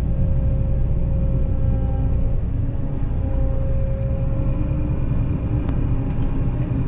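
Combine harvester running steadily while cutting soybeans: a constant low engine drone with a steady whine over it.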